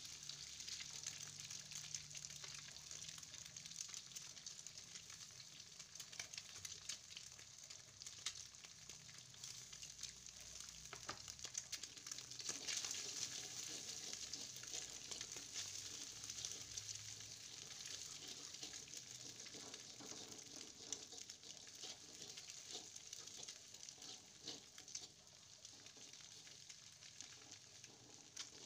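Egg and sliced shallots frying in hot oil in an aluminium wok, a steady crackling sizzle, with a wooden spatula stirring and scraping the pan. The sizzle is a little louder about halfway and eases near the end.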